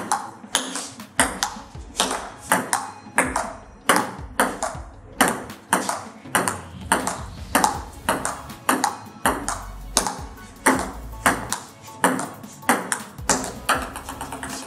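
Table tennis rally: a plastic ball clicking alternately off rubber paddles and the table top, about three clicks a second in an even rhythm.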